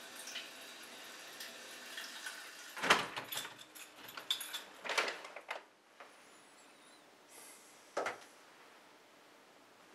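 A door being opened and shut with sharp knocks and clatters, three louder hits about three, five and eight seconds in and smaller knocks between, over a quiet room.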